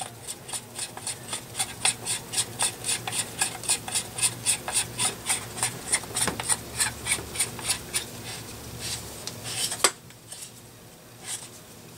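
Rhythmic light scraping clicks, about three or four a second, as the JTS Airacuda's valve assembly is worked back into its tube by hand. One louder click near the end, after which only a few scattered ticks follow.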